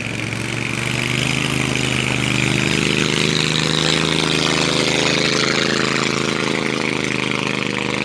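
An engine running steadily at a fairly constant speed, picking up slightly about two seconds in, with a hiss of rushing air or water over it.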